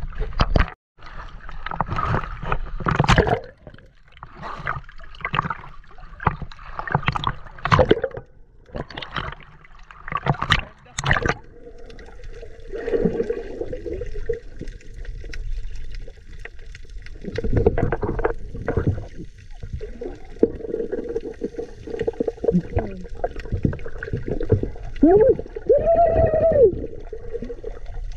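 Sea water splashing and sloshing around a camera at the surface, then muffled underwater sound with a steady low hum and bubbling. A few brief rising-and-falling tones come near the end.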